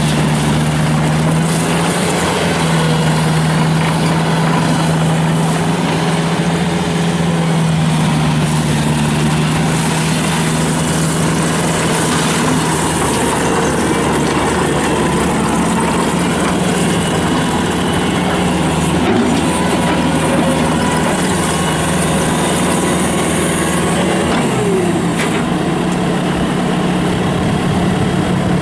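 Kubota turbo diesel engine of a Bobcat T300 tracked skid steer loader running steadily. Its tone changes about halfway through, and near the end the pitch slides down and back up as the load or throttle changes.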